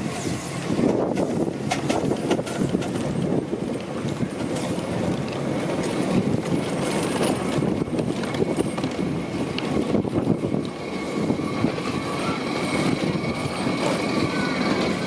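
Live-steam miniature locomotive running along the track, with rapid chuffing from its chimney and the clatter of its wheels on the rails.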